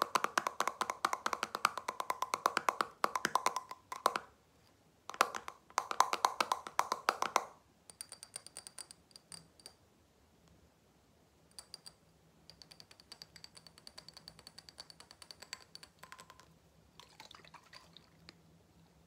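Fast, hard tapping on the metal screw lid of a glass jar: a dense ringing patter that pauses briefly about four seconds in and stops about seven seconds in. Then softer fast tapping on a glass bottle of blue liquid, each light tap with a thin high glassy ring.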